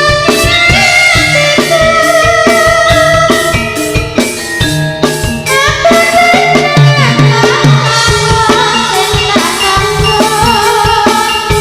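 Live Javanese jaranan (Turonggo horse-dance) music: quick, steady drum strokes under a sustained melody that slides between notes.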